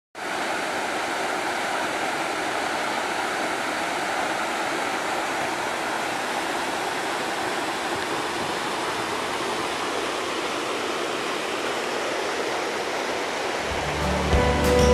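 Steady rush of stream water spilling down from a small wooden chute and running over rocks. Guitar music comes in near the end.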